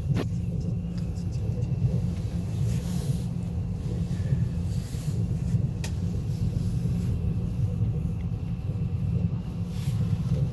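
ES2G Lastochka electric multiple unit running along the line, heard from on board: a steady low rumble of wheels and running gear with a few sharp clicks.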